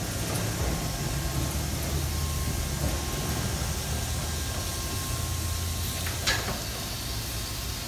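Mark VII touch-free car wash gantry spraying pre-soak as it travels along its rail: a steady hiss of spray over the low hum of its pumps and drive. A brief, sharper hiss about six seconds in, after which the hum drops.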